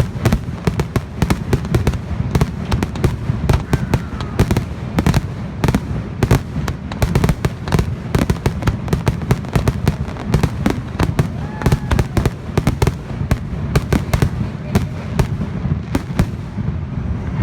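Dense, rapid barrage of aerial fireworks shells bursting, several sharp bangs a second over a continuous low rumble: the closing barrage of a public fireworks display.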